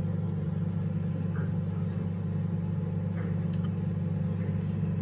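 A steady low mechanical hum, with a few faint clicks and taps over it.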